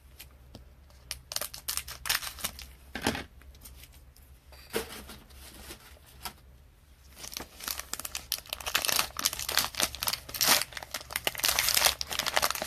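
Trading card pack wrapper being torn open and crinkled. Scattered light clicks at first, then from about halfway a dense, louder run of crinkling and tearing.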